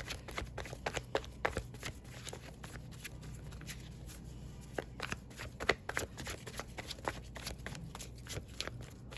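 A deck of tarot cards being shuffled by hand: irregular quick riffling snaps, busiest at the start and again around five to six seconds in.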